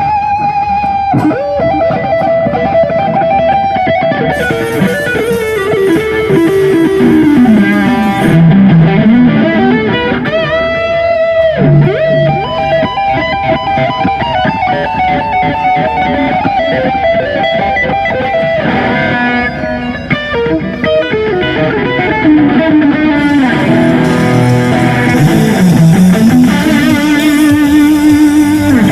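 Electric guitar played as a melodic lead, with long sustained notes, slow bends and slides up and down in pitch, and quick note runs.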